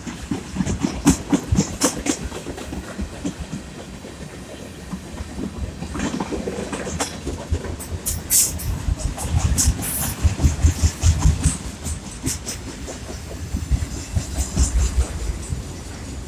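Freight train cars rolling past, the wheels clattering unevenly over rail joints above a low rumble. A couple of brief high squeals come about eight and ten seconds in.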